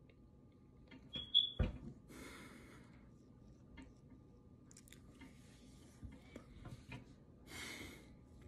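Quiet pause in a small room: a few small clicks and a thump about a second and a half in, then two breaths, one about two seconds in and one near the end, with faint ticks between them.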